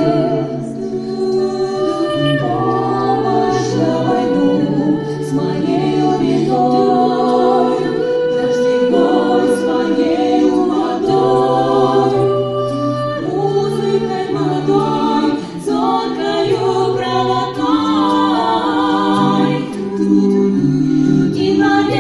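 Vocal ensemble singing a cappella, several voices holding and shifting chords in close harmony.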